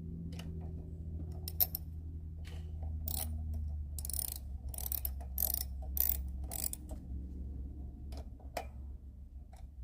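Irregular metal clicks and short scrapes of hand tools working on a lawnmower, most likely a screw being fitted for the new spark plug wire, over a steady low hum. The clicks come thickest in the middle of the stretch.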